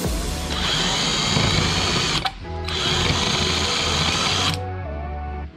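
Electric drill boring a hole with a long twist bit: the motor runs at speed in two stretches, cut briefly about two seconds in, and stops a little before the end. Background music plays underneath.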